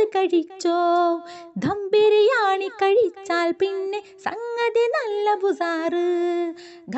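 A woman singing a slow melody solo, with long held notes that waver slightly and glide between pitches, in short phrases.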